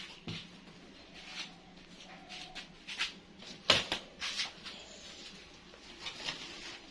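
Folding fishing chair being handled and opened out: scattered clicks and knocks from its frame, the loudest a little under four seconds in.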